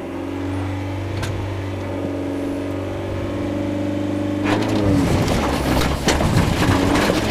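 Rover 214 rally car's four-cylinder engine held at steady raised revs. About four and a half seconds in, the car pulls away hard, and a loud rush of gravel and tyre noise takes over as it accelerates.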